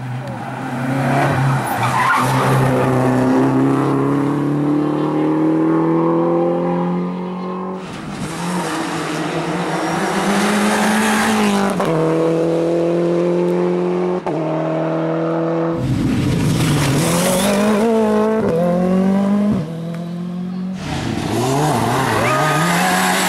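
Rally cars at full throttle, one after another, engines revving up through the gears with a rising pitch that drops back at each gear change.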